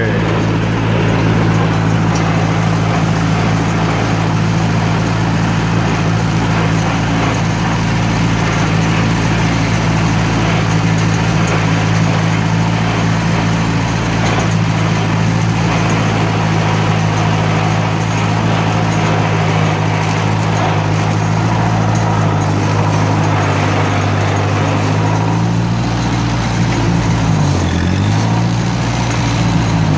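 1958 Cockshutt 540's four-cylinder flathead engine running steadily, heard up close from the tractor. Near the end its speed dips briefly and picks back up.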